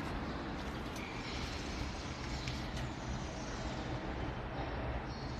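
Steady machinery hum with an even hiss, with no distinct strokes or rhythm.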